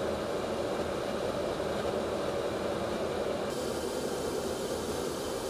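Steady rushing drone of jet aircraft in flight, engine and air noise with no distinct tones. A brighter hiss joins about three and a half seconds in.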